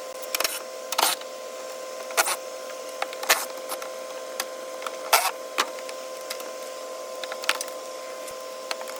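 Irregular sharp clicks and knocks of hand tools and parts being handled on metal, about a dozen spread unevenly, over a steady electrical hum.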